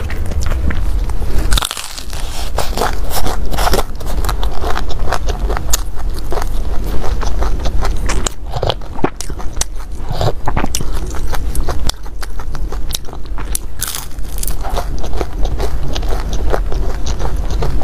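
Close-miked eating: crisp bites into a pan-fried filled flatbread, then chewing, with many sharp crunches and crackles.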